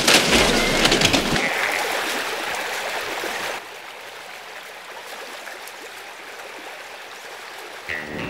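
Rushing water, a steady stream-like rush that is loud at first and drops to a quieter rush about three and a half seconds in.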